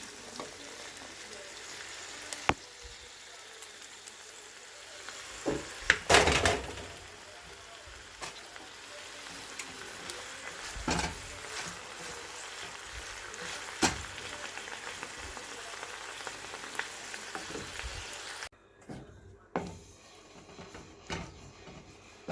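A stir-fry sizzling in a hot pan, with occasional sharp knocks and scrapes of a cooking utensil against the pan as it is stirred; the loudest clatter comes about six seconds in. The sizzle cuts off abruptly a few seconds before the end, leaving only scattered clicks.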